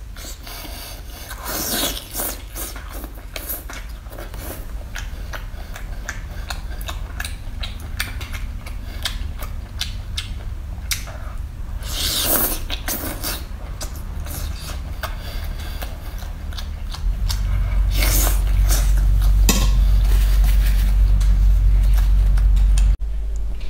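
Close-miked eating sounds: chewing and biting food off a skewer, heard as many small crackling clicks over a steady low hum. The hum gets louder about three-quarters of the way through and then drops suddenly near the end.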